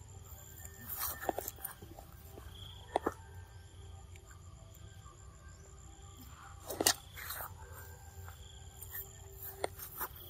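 Young macaques biting and chewing crunchy chunks of green fruit, with a few sharp crunches about a second in, at about three seconds and near seven seconds, over a faint steady background drone.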